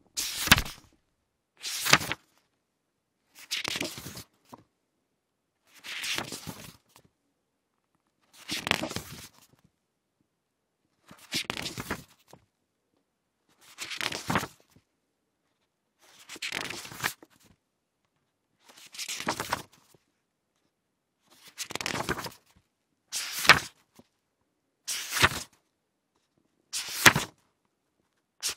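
Pages of a book being turned over one at a time, each turn a short papery rustle and flick, about a dozen in all. They come every two seconds or so, a little quicker and crisper near the end.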